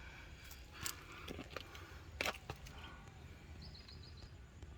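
Outdoor ambience: a steady low rumble with a few sharp rustling clicks about one and two seconds in, and faint high chirping near the end.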